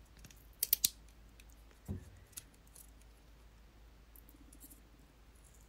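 Charger packaging being pulled open by hand: a quick cluster of sharp crinkly clicks under a second in, a dull knock and a small tick about two seconds in, then faint rustling.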